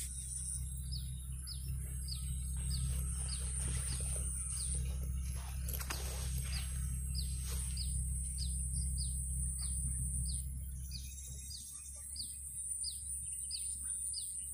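A bird calling over and over with a short, high, falling chirp, about two a second, over a steady high-pitched hiss and a low rumble.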